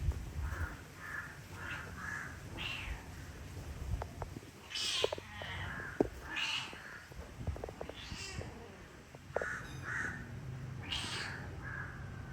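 Cats meowing: many short, high-pitched mews, one after another, with a few sharp clicks in the middle.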